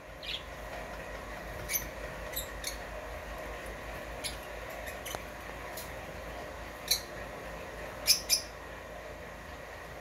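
Rosy-faced lovebirds chirping: short, sharp, high-pitched calls scattered through, the loudest a quick pair near the end.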